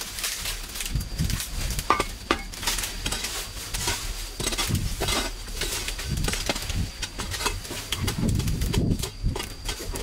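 Irregular knocks, scrapes and rustles of hand cleanup work, with a dove cooing softly near the end.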